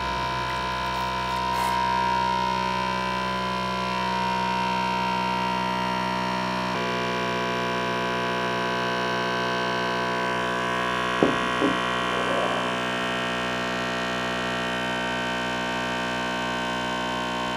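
Source Turbo extraction machine's vacuum pump running with a steady, many-toned hum, pulling vacuum through a Buchner funnel as tincture is filtered; its tone shifts slightly about seven seconds in. Two light knocks a little past the middle.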